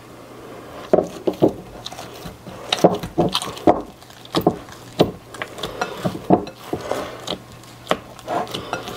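Hands squeezing and kneading soft chapati dough in a glass mixing bowl. Irregular squelches, slaps and knocks against the glass start about a second in, as a splash of water is worked in to soften a dough that was a little tight.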